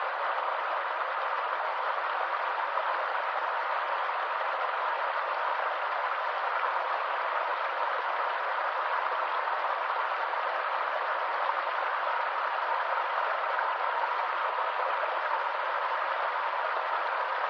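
A stream of water running over rocks in a steady, unbroken rush, with no change in level.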